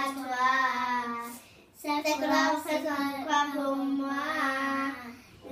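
Young girls singing a French children's song unaccompanied, in two long sung phrases with a short breath between them about one and a half seconds in.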